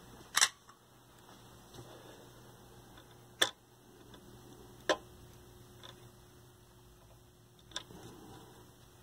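Four sharp, irregularly spaced clicks and taps of small tools and component leads against a metal TV chassis during soldering work, over a faint steady hum.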